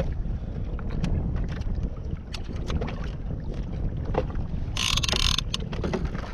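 Wind buffeting the microphone and water moving around a fishing kayak, with scattered small knocks and clicks from the kayak's gear. A brief hiss cuts in about five seconds in.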